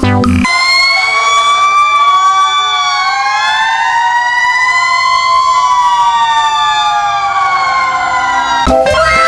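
Several toy emergency-vehicle sirens wailing at once, their overlapping tones slowly rising and falling. Guitar music stops about half a second in and comes back near the end.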